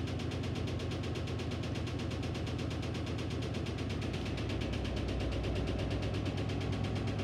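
Electrolux Ecologic 12 kg washing machine running: a steady motor hum with a fast, even pulsing that holds unchanged.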